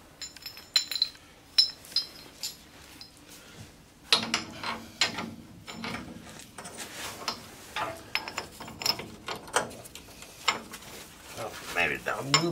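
Metal parts and hand tools clinking and scraping during hand work on a truck's front suspension. A few sharp, ringing metal clinks come in the first two seconds, then a busier run of rattling and scraping from about four seconds in.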